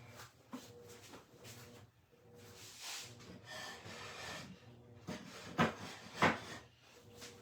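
Soft rustling and handling noises over a low steady electrical hum, with two sharp knocks a little over half a second apart near the end.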